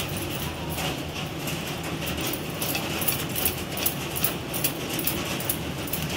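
A hand beating soft, sticky yeasted maida dough in a glass bowl: repeated slaps of the dough against the bowl, about two or three a second.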